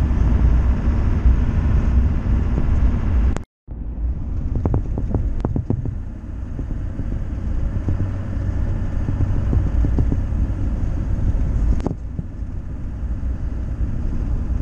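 Steady low rumble of a vehicle driving, engine and road noise heard from inside the cab. The sound cuts out for a moment about three and a half seconds in, and a few sharp knocks or rattles come soon after and again near the end.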